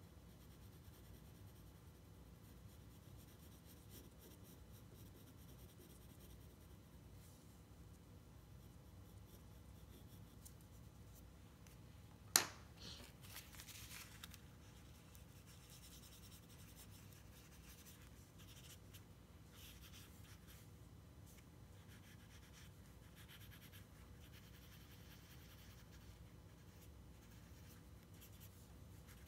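Faint pencil shading and soft rubbing of graphite on drawing paper, the shading blended with a folded cloth over the fingertip. One sharp click about twelve seconds in.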